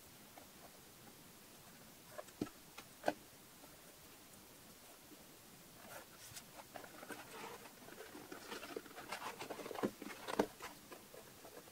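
Faint handling sounds of leather work: two or three sharp clicks between two and three seconds in. Then, from about six seconds, several seconds of rustling and light scraping as a leather cord is drawn through small beads and the leather bag is shifted about on a cutting mat.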